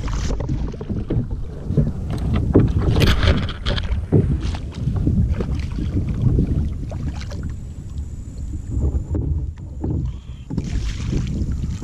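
Wind buffets the microphone in a constant low rumble. Over it, water splashes in short spells as a hooked redfish thrashes at the surface beside a kayak, most strongly about three to four seconds in.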